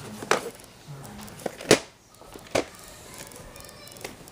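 Handling noise: a few sharp clicks and knocks, about three in four seconds, with the second the loudest, over a low hiss.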